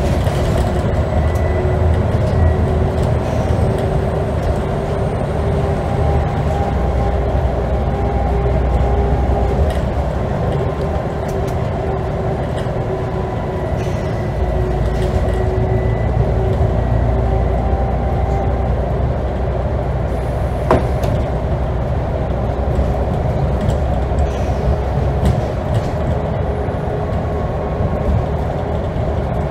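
Scania N94UD double-decker bus heard from inside while it cruises at steady speed: engine and road rumble with a steady whine, the rumble swelling a little about halfway through. A single sharp click or rattle comes about two-thirds of the way in.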